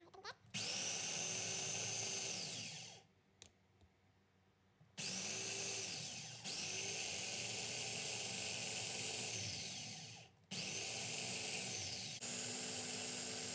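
Electric food chopper (Mitochiba CH-200) run in pulses, chopping chilies, shallots and garlic into spice paste. Its motor starts five times, each run a high whine that rises as it spins up and falls away on release, with a pause of about two seconds after the first run.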